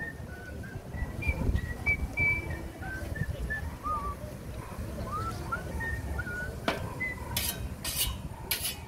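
About four quick strokes of a whetstone along a scythe blade near the end. Short, high chirping whistles sound throughout.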